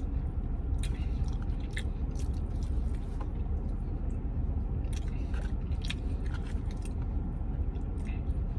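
A man chewing and biting into breaded vegan buffalo fingers, with scattered small wet mouth clicks, over a steady low rumble.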